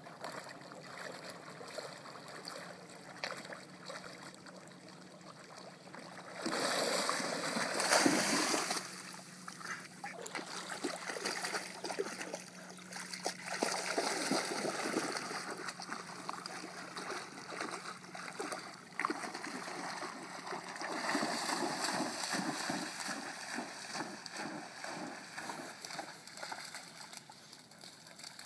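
Springer spaniel wading and splashing through shallow lake water, its legs churning the surface in repeated uneven splashes, loudest from about six to nine seconds in.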